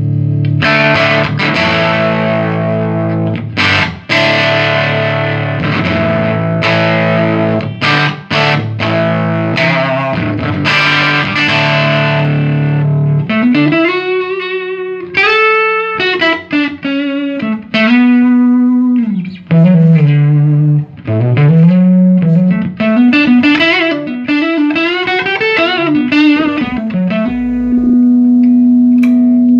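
Electric guitar played through a 1975 Fender Twin Reverb master-volume amp, freshly repaired and being sound-tested. Strummed chords for about the first half, then a single-note lead line with string bends and vibrato.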